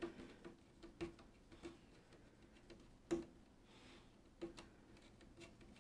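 Faint, irregular clicks and light plucks as a pin picks at the taut warp threads of a weaving loom, pushing the weft down into place; the loudest click comes about three seconds in.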